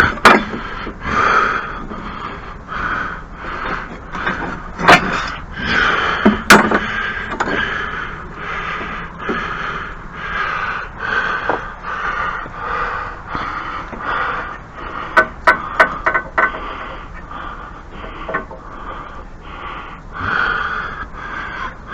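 Tools and metal parts being handled at a snow thrower: sharp clicks and knocks over a quick, even run of short rustling pulses. The loudest knocks come about five and six and a half seconds in, with a quick cluster of clicks around fifteen to sixteen seconds.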